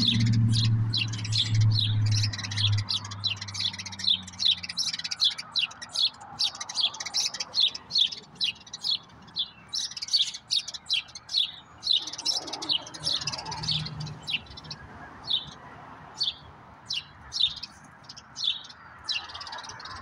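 Small birds chattering: a rapid run of short, high chirps, thick through the first half and thinning out toward the end. A low hum, the loudest sound, fades out over the first three seconds.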